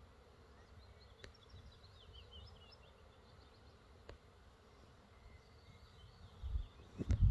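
Honeybees buzzing around an opened hive, with birds chirping quickly in the background. Two sharp clicks, and low rumbling bumps on the microphone near the end, which are the loudest part.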